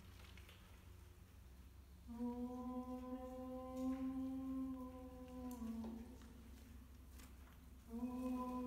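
A voice humming long held notes. The first note starts about two seconds in, holds for about three and a half seconds and drops a step just before it stops. After a short pause, a second held note starts near the end.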